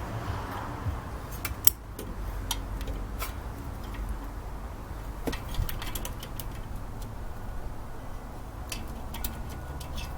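Scattered metal clicks and clinks of hand tools and small engine parts being handled, the sharpest about two seconds in, over a steady low hum.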